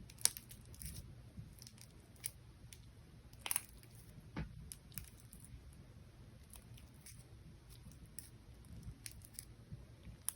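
Slime being squished and stretched by hand: faint, irregular sticky clicks and crackles.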